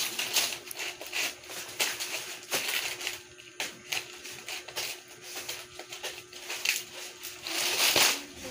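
Fresh nipa palm leaves of a pawid thatch shingle rustling and crackling as they are handled and pressed into place, in irregular crisp snaps with a longer, louder rustle near the end.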